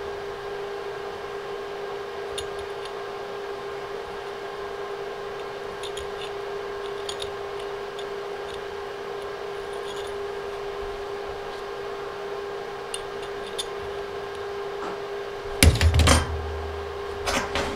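Faint clinks of a bent metal tube and a pipe coupling being handled and fitted together, then a louder metallic clatter near the end as the tube is set down on a stack of metal plates on the metal table. A steady hum runs underneath.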